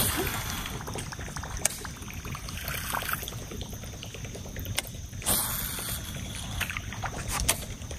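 Lake water lapping and trickling against the hull of a bass boat, over a low steady rumble. A few light ticks, and a brief rush of noise about five seconds in.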